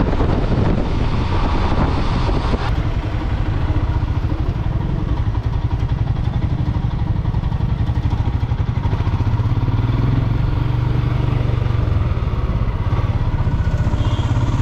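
Motorcycle engine running steadily while being ridden, heard from the rider's position, with wind rushing over the microphone during the first few seconds.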